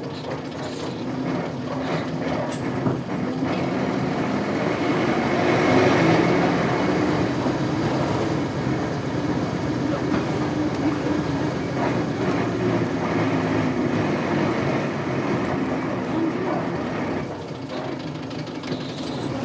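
The 8PE1 V8 diesel engine of a 1998 Isuzu Cubic KC-LV380L city bus running, heard from inside the bus. The engine swells in level about six seconds in and then holds steady.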